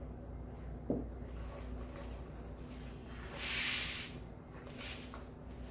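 Deco mesh and wired ribbon rustling briefly as the swag is lifted and handled, after a small knock about a second in.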